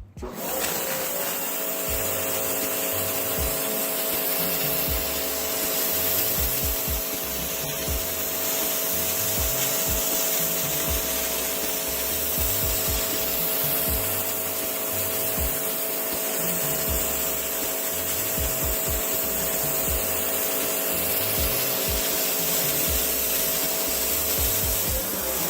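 Sun Joe SPX3000 electric pressure washer spraying through its 0-degree pinpoint tip: a steady hiss of the water jet, with the electric motor and pump humming at a steady pitch from about a second in. It all cuts off near the end.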